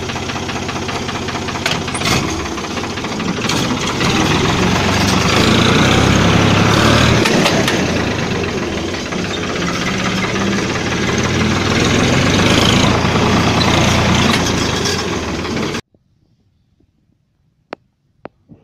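Ford 3055 tractor's diesel engine running while its unsynchronised gearbox is shifted, the engine speed rising and falling as the revs are matched for each gear change, with a sharp clunk about two seconds in. The sound cuts off suddenly near the end, leaving a few faint clicks.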